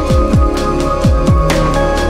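Electronic background music with sustained synth chords and deep bass-drum hits that drop sharply in pitch, landing in pairs about a second apart.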